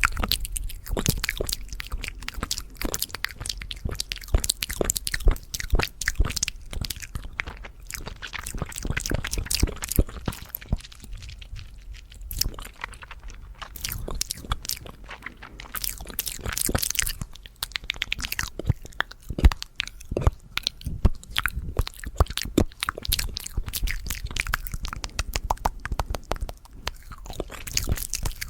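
Fast ASMR mouth sounds: rapid, irregular clicks and smacks of the mouth, many per second.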